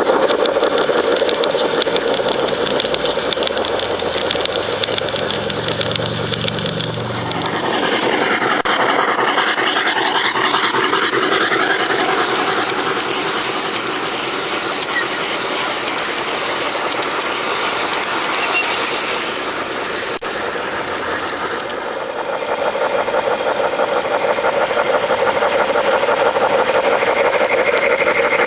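Large-scale garden railway model trains rolling past close by: a steady fast clatter of wheels running over the track, with a deeper hum about five to eight seconds in.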